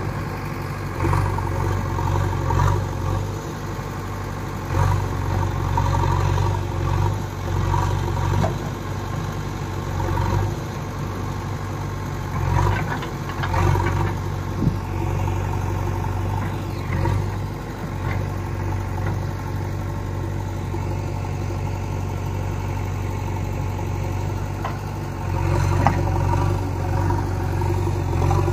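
Heavy diesel engine running at low revs, its hum swelling and easing every few seconds, with a few short knocks.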